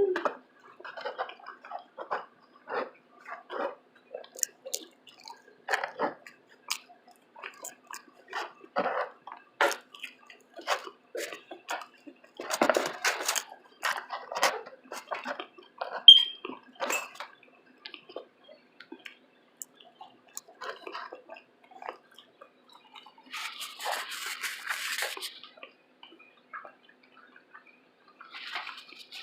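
Close-miked chewing and lip-smacking of someone eating: a string of irregular wet mouth clicks, with one sharper click about sixteen seconds in and a couple of brief rustles near the end.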